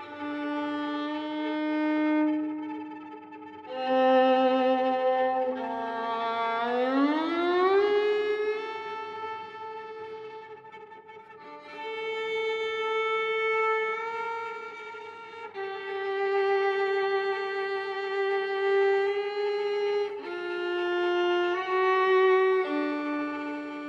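Fiddle playing a slow melody of long held notes with vibrato, with a long upward slide about seven seconds in and short pauses between phrases.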